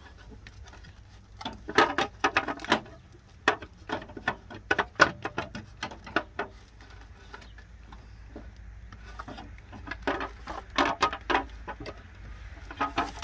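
Clicks and rattles of hands working on parts deep in a car's engine bay. They come in three bursts: about two seconds in, around four to five seconds, and near ten seconds.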